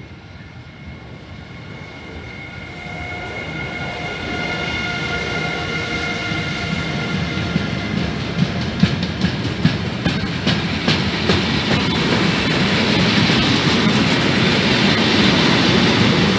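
Freight train running through a station, hauled by a Siemens Vectron electric locomotive: a steady whine as the locomotive approaches and passes, growing louder. Then the articulated container wagons roll by with a loud rolling rumble and sharp clicks of the wheels over the rail joints.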